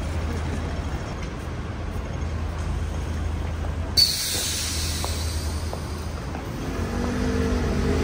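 Road traffic on a busy city street: a steady low engine rumble, with a sudden sharp hiss of air about four seconds in that carries on, typical of a heavy vehicle's air brakes.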